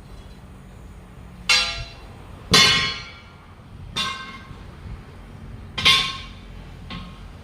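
Hammer blows on steel: five ringing metallic clangs at uneven intervals, the second and fourth the loudest, the last one faint.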